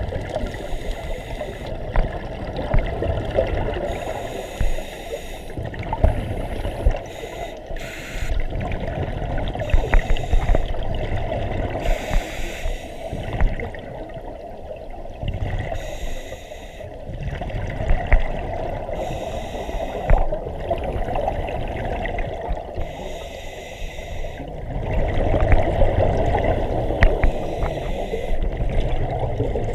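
Scuba diver breathing through a demand regulator underwater: a hiss on each inhale alternates with the bubbling of exhaled air leaving the exhaust valve, in a slow repeating cycle, with the longest bubbling spell near the end.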